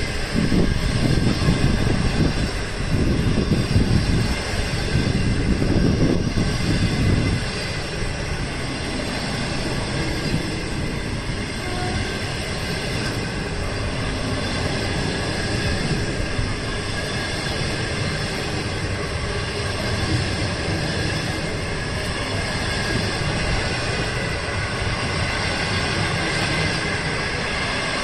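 A long train of green passenger coaches rolling past close by, with a steady noise of wheels on rail. The low rumble is heavier and uneven for the first seven seconds or so, then settles into a smoother, steady rolling sound.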